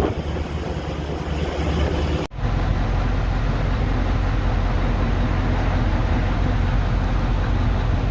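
Steady low engine drone under a rushing noise of moving air. It breaks off sharply about two seconds in, then carries straight on.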